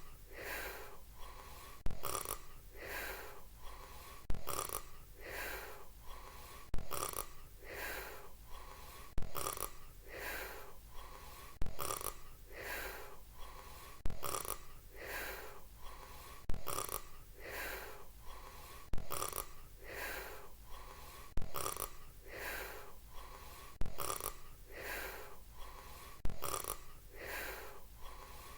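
Cartoon snoring in an even, repeating breath cycle, one snore about every two and a half seconds. Each snore has a sharp start and a breathy part that falls in pitch.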